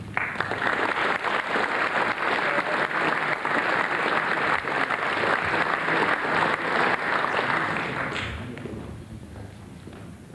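Audience applauding: steady clapping of many hands that fades away about eight seconds in.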